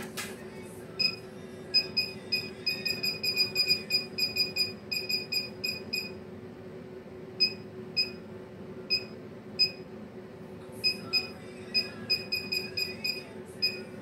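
Radiofrequency facial treatment machine beeping in short high pips while in use, in quick runs of several a second, slowing to single beeps about a second apart in the middle. A steady low hum runs underneath.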